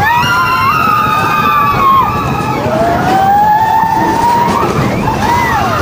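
Roller coaster riders screaming long, drawn-out cries that rise and fall in pitch, two of about two seconds each and shorter ones near the end, over the steady rumble and rush of the moving coaster train.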